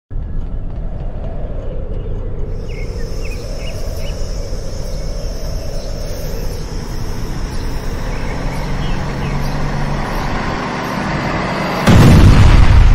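Outdoor yard ambience: a steady low vehicle rumble with a thin, steady high whine over it and a few faint chirps. About twelve seconds in, a sudden very loud burst cuts in and stays loud.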